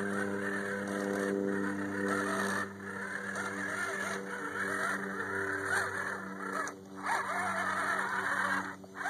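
Axial SCX10 RC scale crawler's electric motor and gear drive whining steadily as it crawls through mud, dropping out briefly three times.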